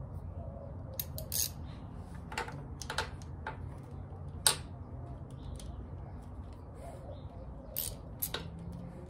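Ratchet and socket clicking and clinking on the mounting bolts of a motorcycle starter relay solenoid as they are tightened: a few irregular sharp metallic clicks, the loudest about four and a half seconds in.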